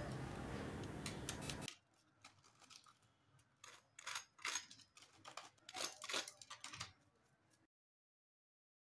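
Crisp, deep-fried breadcrumb crust of a chicken tikka bread pocket crackling as a fork breaks it open: scattered faint crunches in short clusters.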